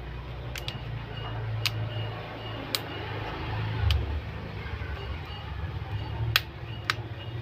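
Sharp clicks and taps of small parts and tools being handled while a Vivo Y91 smartphone is reassembled, about six spread irregularly, over a steady low hum.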